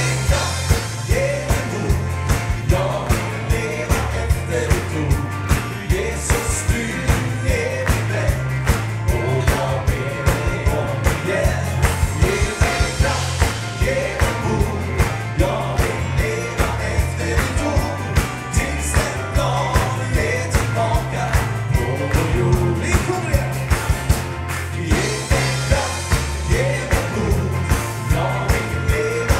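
Up-tempo band song with singing over a stepping bass line and a steady drum beat.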